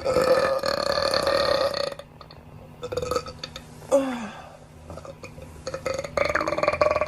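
A person burping loudly from a gassy, upset stomach: a long burp of about two seconds, two short ones around three and four seconds in (the second falling in pitch), then another long one near the end.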